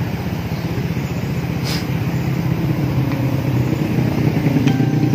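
Yamaha NMAX scooter's single-cylinder four-stroke engine idling steadily through its stock silencer, which has been hollowed out and repacked with glass wool for a deeper exhaust note.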